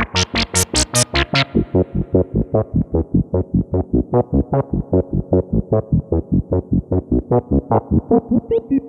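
Korg ARP 2600 FS analog synthesizer playing a fast, even run of short notes, about five a second. The filter is wide open and bright for the first second and a half, then closes down to a duller tone.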